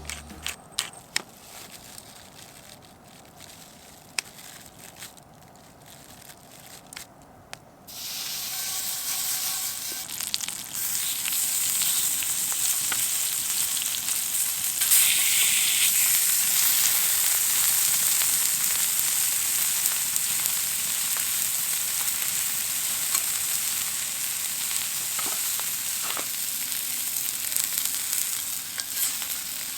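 Food frying in a hot pan: a few light clicks and taps at first, then the sizzle starts suddenly about eight seconds in and goes on steadily, getting a little louder about halfway through.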